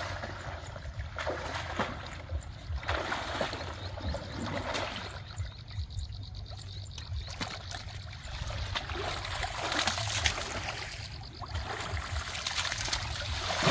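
Muddy canal water sloshing and splashing irregularly as people wade chest-deep through it, groping in the mud by hand.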